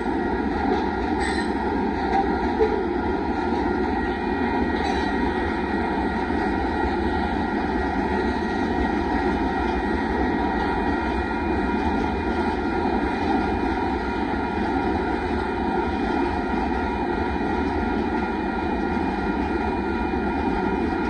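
Loaded rock-train gondola cars rolling past on steel wheels: a steady, unbroken rumble of wheels on the rails, with a few light clicks in the first few seconds.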